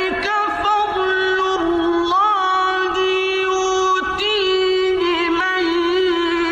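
One voice holding a long, unbroken chanted note with ornamental turns, in the melismatic style of Quran recitation (tajweed).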